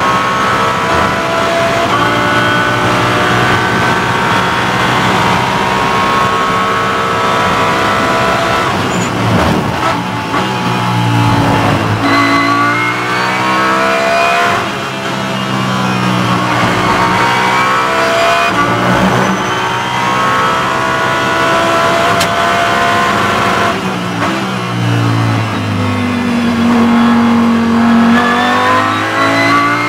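Lamborghini Huracán GT3 EVO race car's V10 engine, heard from inside the cockpit at racing speed. The pitch climbs again and again under full throttle and drops back at each gear change, and falls in steps under braking and downshifts about a third of the way in and again near the end.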